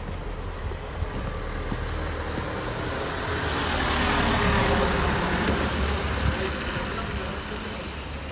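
A motor vehicle driving past, its engine rumble and tyre noise swelling to a peak about halfway through and then fading away.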